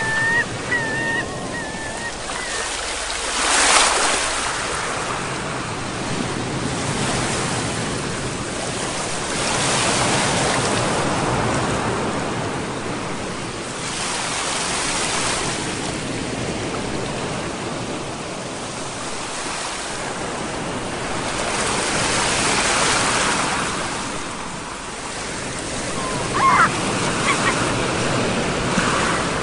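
Sea waves breaking and washing on a shore, the surf swelling and easing every few seconds. A few brief high calls sound near the start and again near the end.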